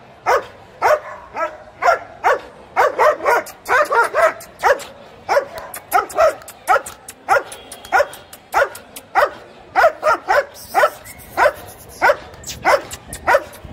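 A large black long-haired guard dog barking over and over at about two barks a second. These are threat barks: the dog is lunging toward the camera with its teeth bared.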